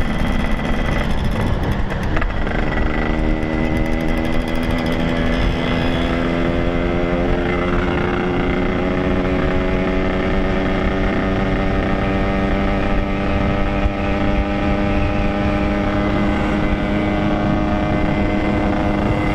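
Yamaha RX-King's single-cylinder two-stroke engine running under way, steady, its pitch rising slowly and evenly.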